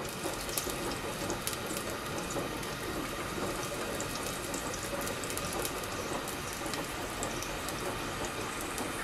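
Chopped red onion frying in hot oil in a pot: a steady sizzling hiss with faint crackles.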